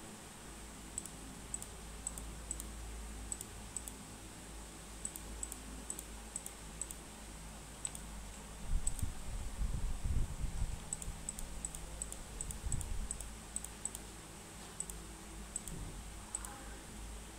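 Computer mouse clicking: sharp, irregular clicks, many in quick pairs. Low thumps and rumble from about halfway through, the loudest sound in the stretch.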